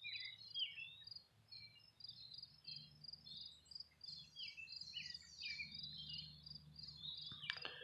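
Faint outdoor ambience: an insect chirping in an even rhythm of about three pulses a second, with birds calling in short falling chirps over it.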